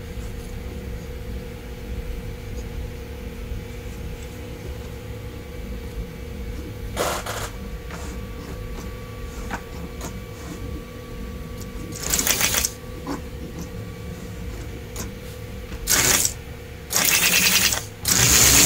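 The motor and gearing of a 1947 American Flyer #312 S-gauge steam locomotive running on the track with a steady whir and hum, freshly greased after running poorly. Short loud hissing bursts come about 7 s, 12 s, 16 s and 17 s in.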